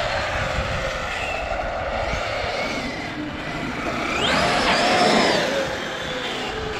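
Castle 1717 1650kv sensored brushless motor in an 8S-powered Traxxas X-Maxx RC truck whining through its mod-1 gears as the truck is driven. The whine falls away at the start, then rises sharply about four seconds in under a burst of throttle and drops off again, over a steady noisy rush.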